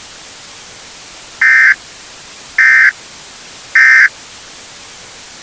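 Emergency Alert System end-of-message signal: three short bursts of digital SAME data tones about a second apart, the coded sign that the alert has ended, over a steady hiss of static.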